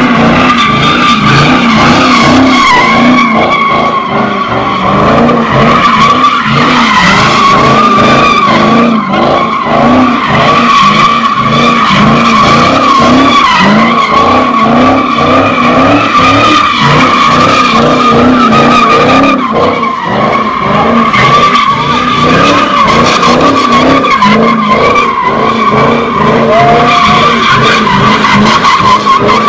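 A car spinning donuts, its tires squealing without a break while the engine is held at high revs. The sound is loud throughout.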